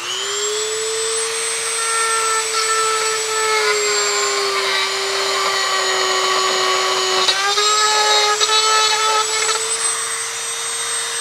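Dremel rotary tool spinning at high speed with a steady whine, grinding through a plastic kick panel. Its pitch dips slightly in the middle and comes back up about seven seconds in.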